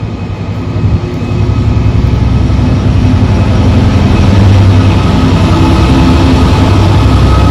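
Freightliner Class 66 diesel locomotive's EMD two-stroke V12 engine running as it passes with a container train, growing louder over the first few seconds as the locomotive draws level, then holding steady.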